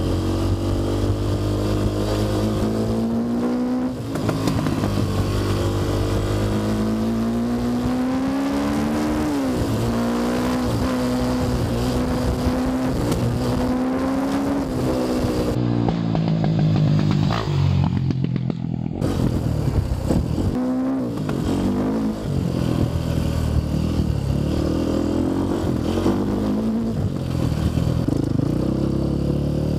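Enduro dirt bike engine heard from on board, revving up and down as the rider accelerates and shifts along a bumpy dirt track, with the pitch climbing and falling again and again.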